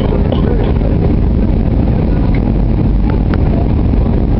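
Steady roar of jet airliner cabin noise, from engines and airflow over an Airbus A320-family jet, heard from a window seat over the wing during the descent to land.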